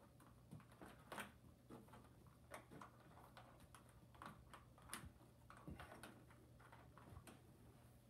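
Faint, irregular clicks and rustles of a power cord being unwound from the cord hooks of an upright vacuum cleaner and gathered by hand.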